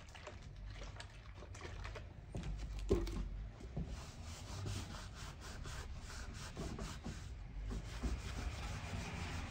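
Wet sponge being rubbed back and forth over a leather boot sole, a faint scrubbing, to soak the leather so hobnails can be driven in. A light knock about three seconds in.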